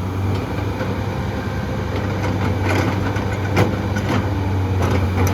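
Heavy diesel engine of earthmoving machinery running steadily at a low pitch, with a few short clanks and knocks scattered through.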